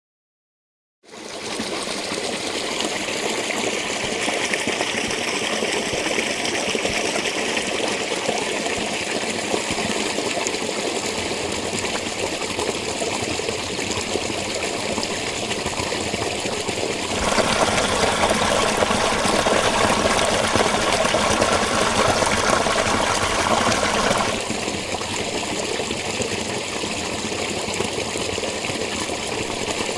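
Spring water running and trickling in a steady rush, starting about a second in. It grows louder and fuller from about 17 to 24 seconds, then settles back to the earlier level.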